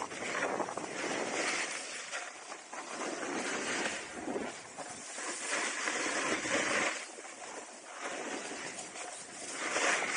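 Skis sliding and scraping over groomed, packed snow, a hissing rush that swells and fades every couple of seconds as the skier turns.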